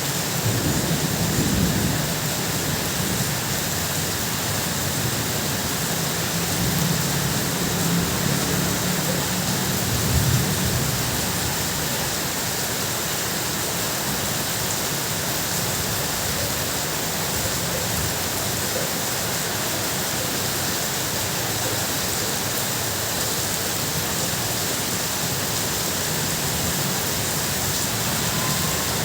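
Heavy rain falling steadily on a tin roof, with low rumbles of thunder swelling a few times in the first half, the loudest about a third of the way through.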